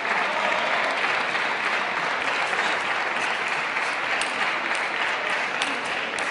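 Arena crowd applauding steadily after a point in a table tennis match, with a few faint clicks in the second half.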